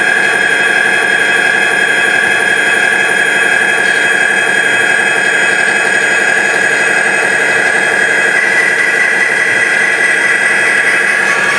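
Model EMD SD40 diesel locomotives running past on the layout: a steady, high-pitched whine over an engine-like running sound that holds at one pitch throughout.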